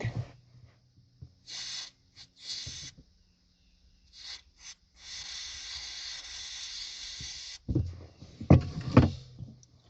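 WD-40 aerosol can spraying onto a rag: a few short hisses, then one long hiss of about two and a half seconds. A few sharp knocks follow near the end.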